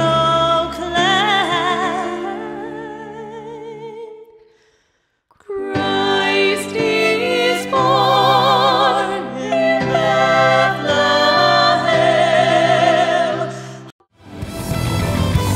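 Women's voices singing a slow passage in close harmony with strong vibrato. A held chord fades to silence about four seconds in, then a new harmonised phrase begins. Near the end it breaks into loud electric guitar rock music.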